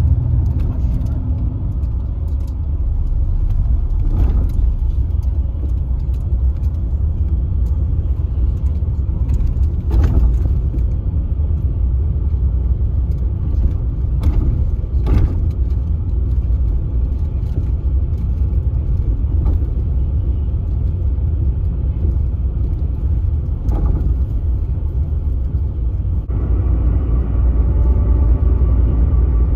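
Steady low rumble of a moving vehicle, with a few brief knocks along the way. Near the end a higher steady hum joins in.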